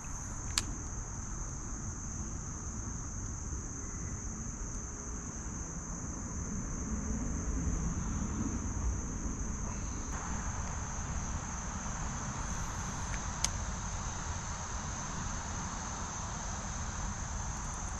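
Insect chorus, a steady high-pitched trill that never lets up, over a low rumble, with a couple of small clicks.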